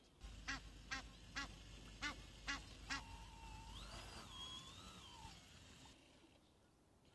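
A duck quacking six times in quick succession, faint. After the quacks comes a wavering whine that rises and falls for about two seconds, over a low rumble.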